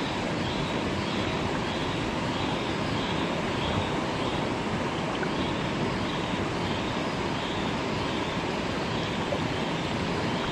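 Fast, shallow river water rushing steadily over rocks, with a faint high chirp repeating about every half second.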